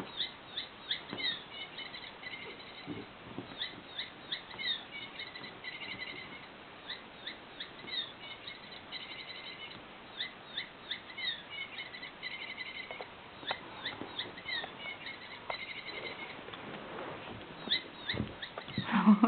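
Squeaky toy mouse giving short, high-pitched chirps in quick clusters, over and over, as it is batted about. A louder, lower sound comes right at the end.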